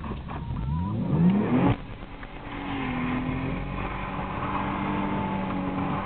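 BMW E36 320i's two-litre straight-six, heard from inside the cabin, revving up hard with a rising pitch, then dropping off sharply just before two seconds in. It then runs on at steady revs.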